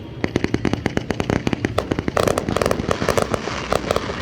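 Aerial fireworks going off in a rapid string of sharp cracks and bangs, several a second.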